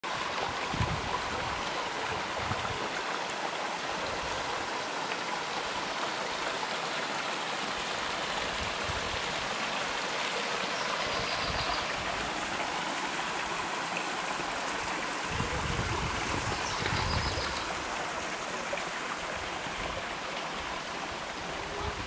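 Water of Sycamore Canyon Falls cascading over rock: a steady, even rush of falling and splashing water, with a few brief low rumbles a little past the middle.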